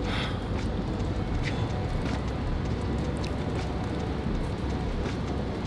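Steady low rumbling background noise, with a few faint short ticks.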